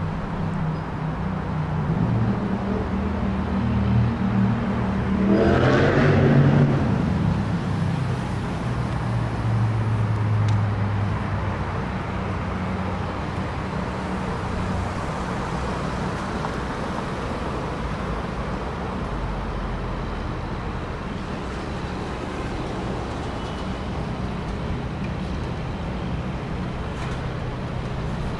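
City street traffic: vehicle engines running with a low steady hum, and one vehicle passing close about six seconds in. After that, even traffic noise carries on.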